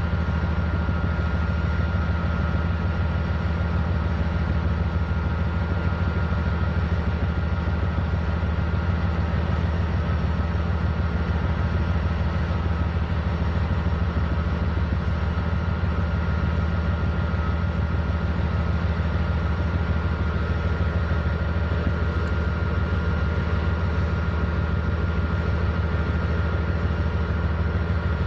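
Norfolk Southern diesel-electric freight locomotives pulling a train slowly at close range: a steady, deep engine drone with a thin steady whine above it.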